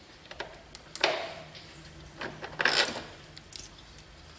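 Small metal tools and parts clinking and rattling as they are handled: a few short clicks and two brief jangling rattles, about a second in and near three seconds.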